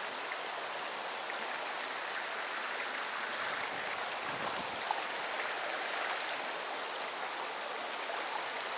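Shallow mountain trout stream running steadily over rocks, its flow low from drought.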